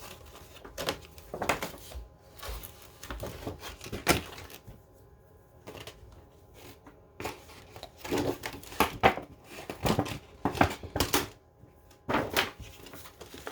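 Cardboard box and packing being handled and pulled at while an item is worked out of the tight box: irregular knocks, scrapes and rustles in uneven bursts.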